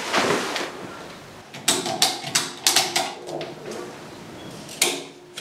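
Ratchet tie-down strap being cranked tight: a quick run of sharp clicks from its ratchet buckle, then one more click near the end.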